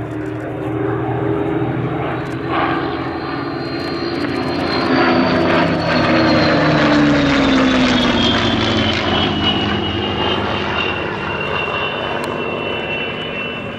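Two Supermarine Spitfires' Rolls-Royce Merlin V12 engines running in formation flight. The drone builds to its loudest about halfway through, then drops in pitch as the pair pass and draw away.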